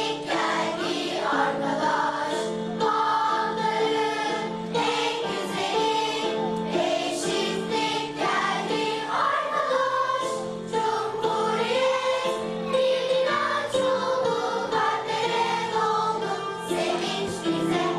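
A school choir singing a song with musical accompaniment, the voices carrying on steadily over a repeating lower backing.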